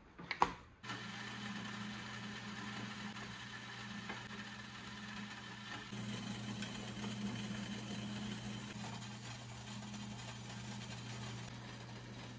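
A click, then a small electric motor starts and runs with a steady low hum, slightly louder about halfway through.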